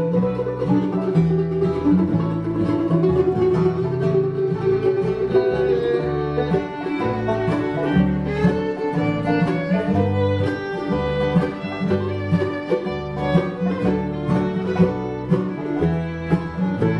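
Acoustic bluegrass band playing an instrumental passage: banjo, acoustic guitar, upright bass, mandolin and bowed fiddle together, with the fiddle's melody over a steady bass rhythm.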